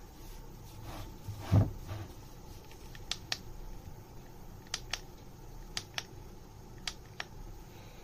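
A single thump about one and a half seconds in, then four quick pairs of sharp clicks from the push button on a portable cordless humidifier being pressed again and again.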